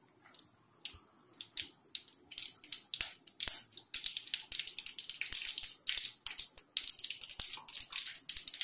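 Mustard seeds popping in hot coconut oil in a kadai, the tempering stage when the seeds burst. It starts as a few scattered pops and thickens into a dense, continuous crackle about halfway through.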